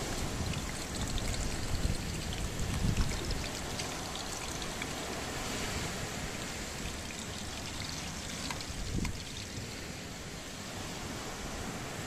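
Steady rushing of water, with gusts of wind buffeting the microphone in the first few seconds.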